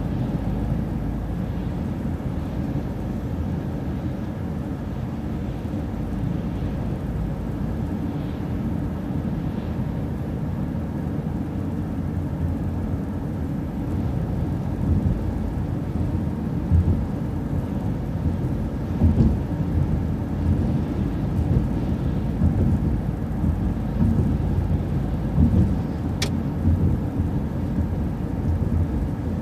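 Low, steady rumble of a city transit bus's engine and road noise heard from inside the cabin, with irregular bumps in the second half and one sharp click near the end.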